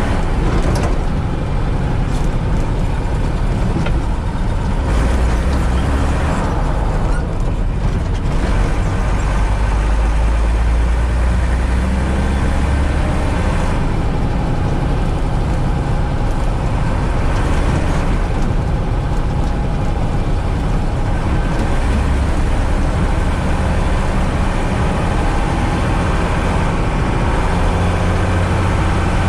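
Mercedes-Benz Unimog U 406's six-cylinder diesel engine running steadily as the truck is driven along, a loud deep drone that swells for a stretch in the middle.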